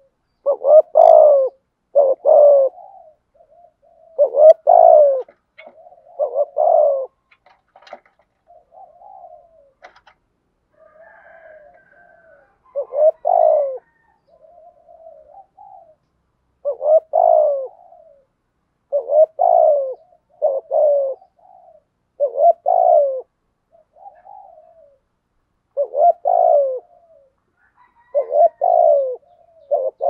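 Spotted dove giving its urgent bow-coo: loud, short double-note coos repeated every couple of seconds, with softer coos in between.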